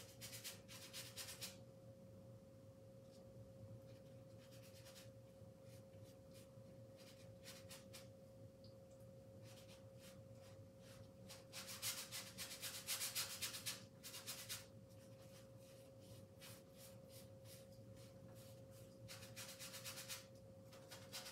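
Paintbrush bristles dragging thick paint across a large canvas in scattered bursts of scrubbing strokes, the longest run lasting a few seconds about twelve seconds in. A faint steady hum runs underneath.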